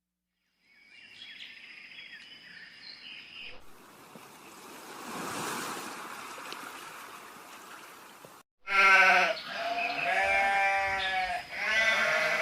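An animal calling loudly in long pitched calls, first heard about two-thirds of the way in, with a brief break before a second call near the end. Before the calls there are several seconds of faint hiss and noise.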